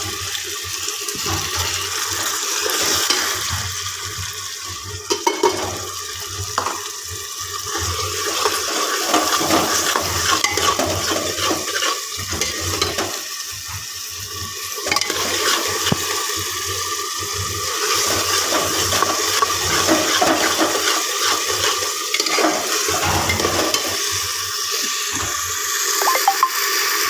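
Sliced onions, ginger and garlic sizzling steadily in hot oil in an open pressure cooker as they brown, with a steel spoon now and then stirring and knocking against the pot.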